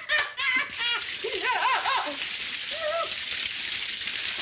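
Water gushing and spraying from burst plumbing pipes, a steady hiss, with a man's high, rising-and-falling comic yelps and whoops over it.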